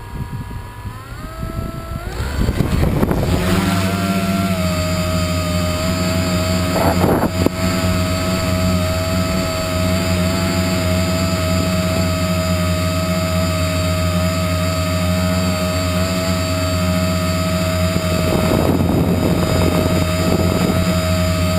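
Tricopter's electric motors and propellers whining as they spin up, the pitch rising over the first couple of seconds, then holding a steady multi-tone drone in flight. Gusts of wind noise on the microphone come and go over it.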